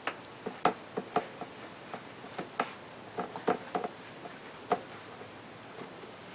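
Irregular light clicks and taps as a bicycle tyre is worked back onto its rim by hand, the rubber and bead knocking against the rim.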